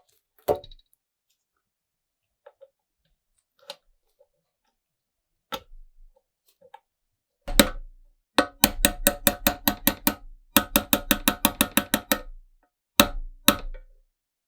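A run of sharp mechanical clicks: a few single clicks, then two quick runs of about six or seven clicks a second, then two more single clicks near the end.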